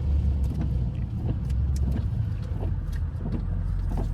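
Chrysler 300 SRT's 6.4-litre HEMI V8 running steadily while driving on a wet road, heard from inside the car, with scattered faint ticks over the low engine hum.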